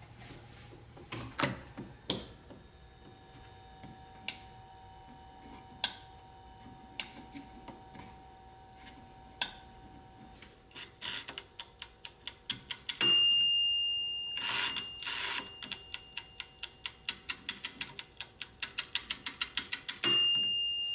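Control panel of an electric burger press being worked: a rocker power switch clicks on, the thermostat knob turns with a few separate clicks, then the spring-wound timer dial is turned with rapid ratchet ticking. Its bell dings twice, about thirteen seconds in and again near the end.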